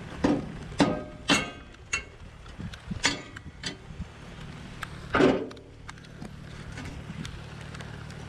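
About seven irregular hammer blows on the steel exhaust stack and muffler of an M936A2 military truck, several ringing briefly, the loudest about five seconds in: knocking the rusted exhaust loose to get the muffler off.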